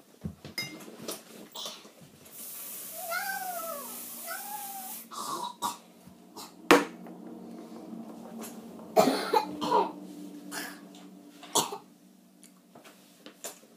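Two short meow-like calls, each rising then falling in pitch, about three and four and a half seconds in, over a hiss. Around them come cloth rustling against the camera and several sharp knocks from handling.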